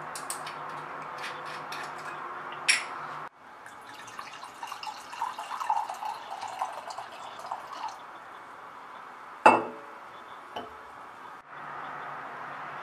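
Red wine poured from a glass bottle into a stemmed wine glass, glugging and splashing for a few seconds. Before it come small handling clicks and one brief sharp sound as the bottle is opened. After it comes a single sharp knock, with a lighter one after, as glass is set down on the stone counter.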